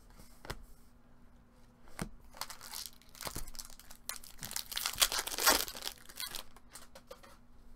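A 2017 Topps Chrome baseball card pack's foil wrapper crinkling and tearing as it is ripped open, loudest about five seconds in. A few sharp clicks come first.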